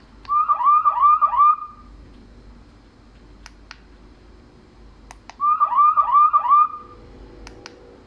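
M4-3R nurse-call display monitor playing its ringtone: a burst of four quick chirping beeps, sounding twice about five seconds apart. Light clicks of the call button being pressed come in between.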